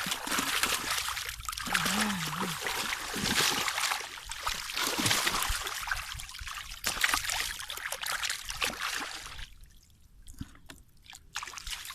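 Water splashing and trickling in a muddy fishing hole, uneven, with many small splashes; it drops away for a couple of seconds near the end.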